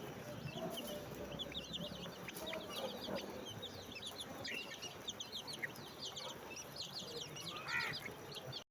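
A group of baby chicks peeping continuously: many short, high, falling peeps overlapping one another, with one louder, lower call near the end. The sound cuts off abruptly just before the end.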